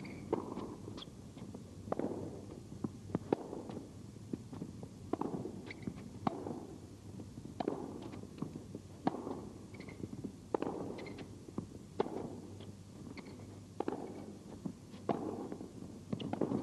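Tennis ball struck hard back and forth in a long baseline rally: sharp racket hits about every second and a half, with fainter ball bounces between them.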